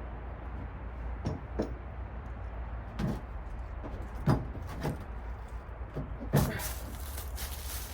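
A truck cap being handled on a pickup bed: a series of about six hollow clunks and knocks, the loudest two past the middle, with some scraping near the end, over a steady low rumble.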